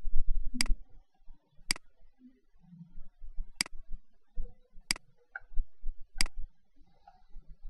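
Computer mouse clicking: five sharp single clicks, one to two seconds apart, with low dull thumps in between.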